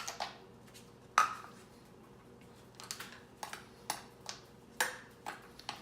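Ice cubes dropped into a bowl of hot ramen. One sharp clink about a second in, then a run of lighter clicks and clinks.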